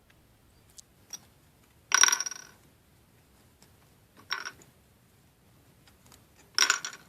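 Coins dropped one at a time into the plastic coin tray of a toy cash register drawer: three ringing clinks about two seconds apart, after a couple of faint clicks.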